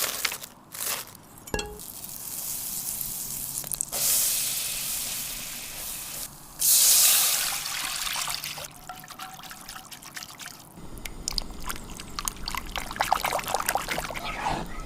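Liquid being poured, with the pour swelling twice, the louder about seven seconds in. A run of short clicks follows near the end.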